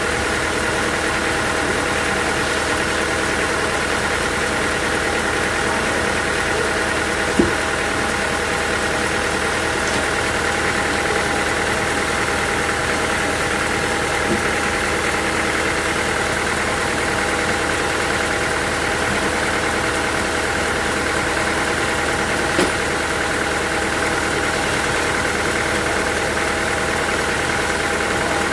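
Sawmill machinery running steadily, a constant mechanical hum with several fixed tones, broken by three brief sharp knocks spread through the stretch.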